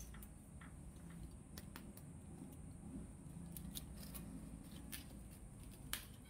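Table knife cutting through the crisp, crackling skin of a deep-fried pork knuckle: a scatter of faint sharp crackles and clicks, with one sharper crack near the end.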